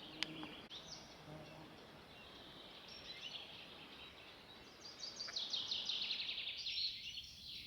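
Songbird singing in woodland: a few scattered high chirps, then about five seconds in a rapid trill of quick repeated notes lasting nearly two seconds.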